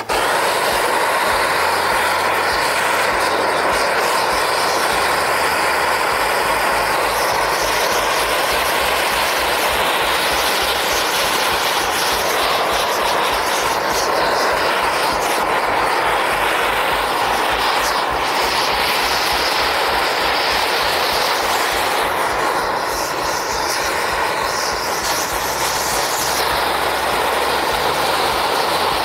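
Propane weed-burning torch burning at full flame with a steady, loud rush as it is played over a pine plank to scorch its surface.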